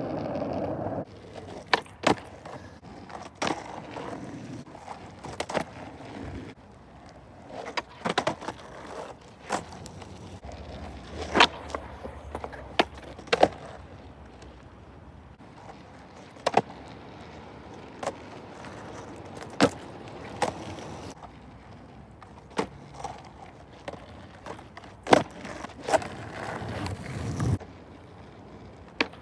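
Skateboard rolling over rough ground, with sharp, irregular clacks of the board and wheels striking the surface every second or so.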